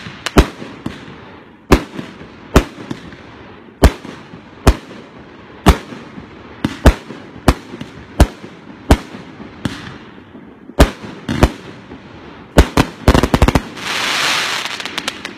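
A 138-shot firework cake of mixed 1.2- and 2-inch tubes firing: sharp bangs roughly one a second, then a quick run of several bangs close together near the end, followed by a loud rushing hiss.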